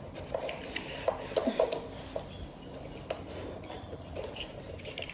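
Small hard parts of a ring light kit clicking and clinking as they are handled and fitted, with scattered light knocks, most of them in the first two seconds.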